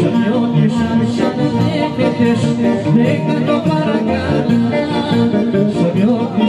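Greek folk dance music with singing and instruments, accompanying a gaitanaki maypole ribbon dance.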